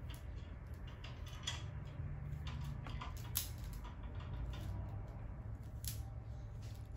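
Detangling brush being pulled through wet, curly hair: short, irregular scratchy strokes over a steady low hum.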